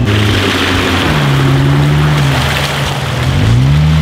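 Lifted Jeep Wrangler JK's engine running under load as it drives through a shallow muddy creek, with water splashing around the tyres. The revs swell up and fall back about three and a half seconds in.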